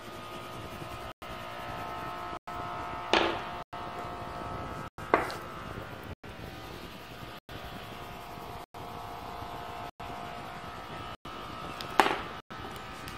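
Oil pastel crayons knocking against a wooden tabletop three times: about three seconds in, two seconds later, and once near the end. Under them runs a steady hum.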